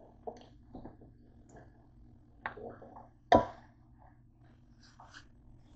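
A spoon stirring pork in a nonstick frying pan: scattered scrapes and light clacks, with one louder knock against the pan about three seconds in, over a low steady hum.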